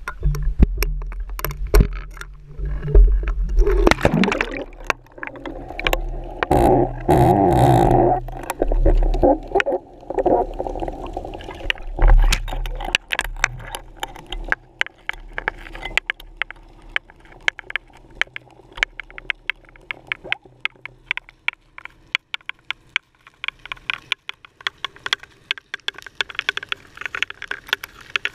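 Sound picked up from inside a GoPro's waterproof housing as it sinks on a fishing line: a low rumble and rushing, gurgling water in the first half, then a steady run of sharp clicks and ticks underwater that grow denser toward the end.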